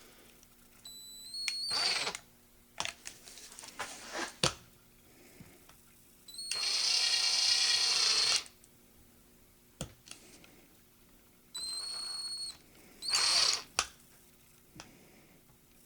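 Power drill with a 5/32-inch bit boring a pilot hole into a dowel-plugged wooden gun stock, run in several short trigger pulls, its motor whine rising as each one spins up; the longest run lasts about two seconds in the middle. A few sharp clicks fall between the runs.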